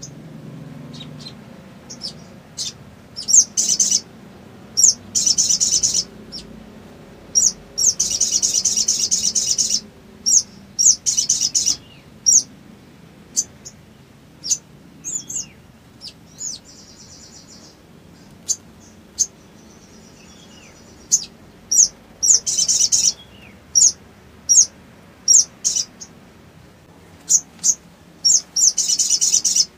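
Caged male sunbird calling: repeated sharp, high chirps broken by several fast chattering trills of one to two seconds, and a couple of softer buzzy trills midway.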